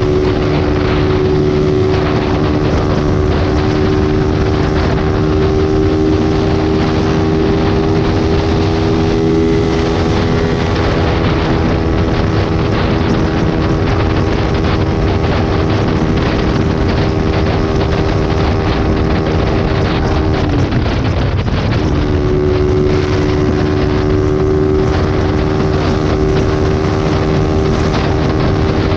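Small motorcycle engine held at steady high revs at highway speed, a constant whine over wind rush. About twenty seconds in, the engine note drops away for a moment and then comes back at the same pitch.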